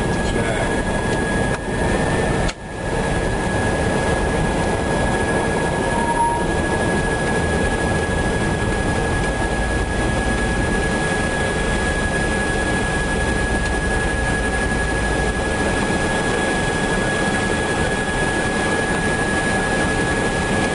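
Steady cockpit noise of an Airbus A319 in flight, the airflow and engine noise as an even roar with a thin steady high whine over it. A brief dropout about two and a half seconds in.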